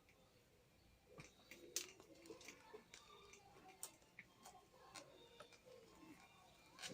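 Faint, irregular clicks and light taps, as small parts and hand tools are handled during fitting work.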